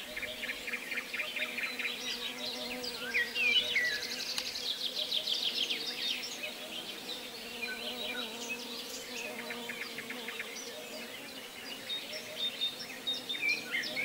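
Several birds singing at once: rapid trills and short whistled, gliding notes, over a faint steady low hum.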